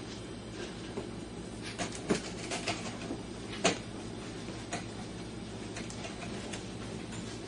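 A loaf of French bread held crosswise in a small dog's mouth knocks and scrapes against a wooden shelf edge as the dog pushes it at a gap too narrow for it. There are a few scattered dull knocks, the sharpest about three and a half seconds in, over a steady low hum.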